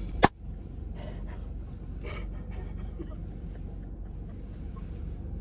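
A woman's breathless, nearly silent laughter: gasps and wheezy breaths over the low, steady rumble of an idling car. A single sharp click comes just after the start.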